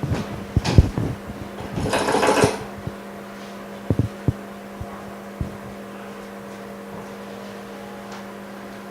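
Small tools and parts being handled on a workbench: scattered clicks and knocks, with a short hiss about two seconds in, over a steady low machine hum.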